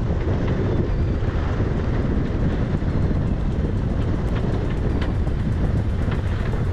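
Strong wind buffeting the microphone aboard a sailboat under sail, a steady loud rumbling rush with water noise around the boat and a few faint ticks.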